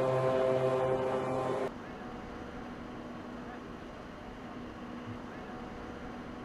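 A ship's horn sounds a deep, steady note as the aircraft carrier is launched into the water, then cuts off abruptly less than two seconds in. A much quieter steady background hum follows.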